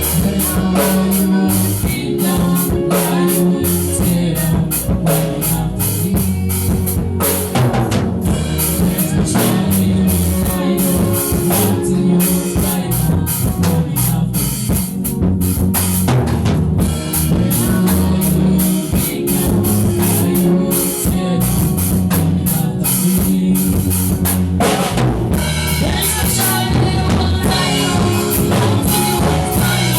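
Music played on a drum kit with a steady beat over a bass line and sustained chords; the arrangement gets brighter and fuller near the end.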